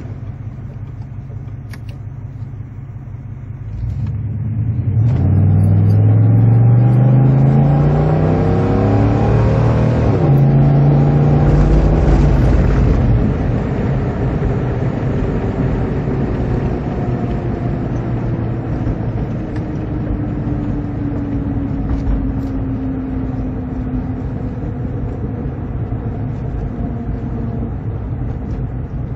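Stroker engine heard from inside the cab, accelerating hard at wide-open throttle from about four seconds in. Its note rises, breaks and climbs again near ten seconds as at a gear change, then eases off about thirteen seconds in and slowly falls in pitch as the truck coasts.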